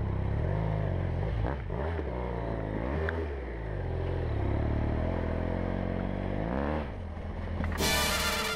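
BMW F800GS's parallel-twin engine running under a rider, its revs rising and falling several times. Music cuts in near the end.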